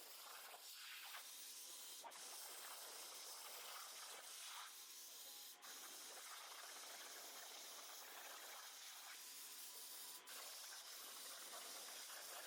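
Plasma torch hissing steadily as it cuts copper on a CNC plasma table, faint, with a few brief dips in level.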